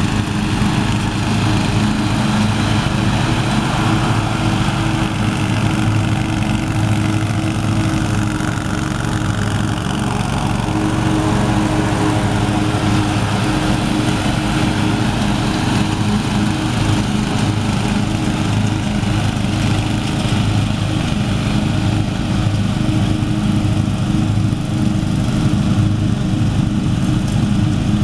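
A riding lawn tractor and the small petrol engines of the pull-behind mowers it tows, running together at a steady speed while cutting grass.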